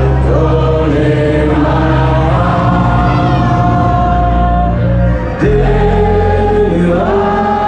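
A large crowd singing along together to an amplified live band, many voices on long held notes over a steady bass.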